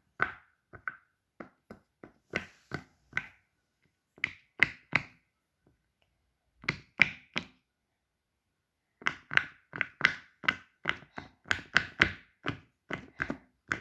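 Plastic fidget toy being tapped or clicked: short, sharp hollow taps, first in little groups of three, then after a short pause in a steady run of about three a second.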